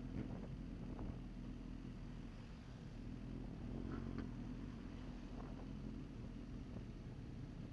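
A vehicle engine running steadily under way, a low even hum with a few faint clicks.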